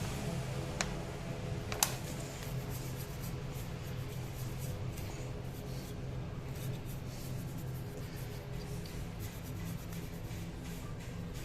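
Hand tools and bolts on the metal CVT cover of a Honda PCX 150 scooter: two sharp metal clicks about one and two seconds in, then light scraping and handling noise as the cover bolts are started, over a steady low hum.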